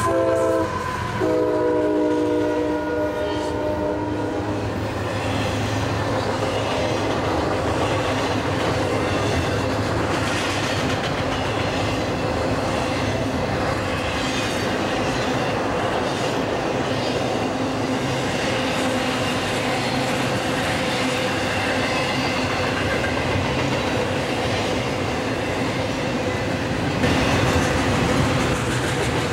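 CSX freight diesel locomotive passing close with its multi-note horn sounding. The horn chord drops in pitch as the locomotive goes by and stops about four seconds in. After that comes the steady rumble and clatter of the train's intermodal cars rolling past on the rails.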